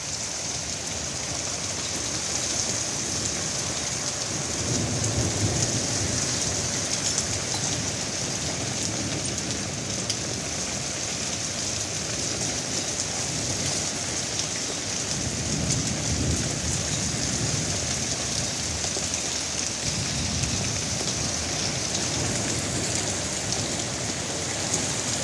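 Heavy rain pouring down in a thunderstorm, a steady dense hiss of downpour on the pool and patio. Low rumbles of thunder swell up a few times: about four seconds in, again around fifteen seconds, and near twenty seconds.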